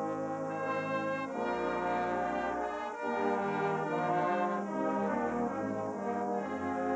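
A brass band playing a slow piece, with trombones prominent: held chords that change together about once every second or two.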